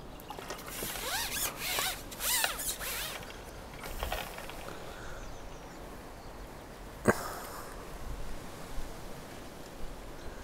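Carbon fishing pole or landing-net handle sections being fitted and slid together: a run of squeaky rubbing scrapes in the first three seconds, then a single sharp click about seven seconds in.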